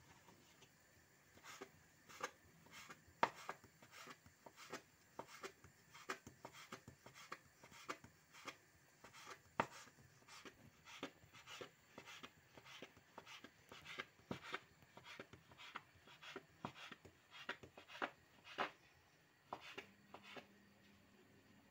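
Faint, irregular clicks and taps, about two or three a second, starting about a second and a half in and stopping shortly before the end.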